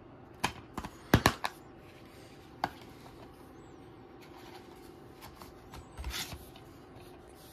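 Plastic DVD case being handled and snapped shut: a quick cluster of sharp clicks and snaps about a second in, one more click a little later, and a brief rustle of handling near the end.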